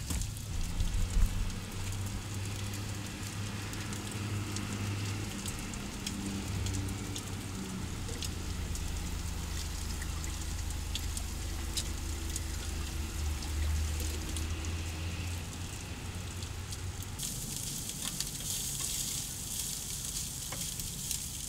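Sausage and diced vegetables sizzling in a frying pan on the stove burner, a steady fine crackle over a low steady hum. The sizzle grows louder near the end.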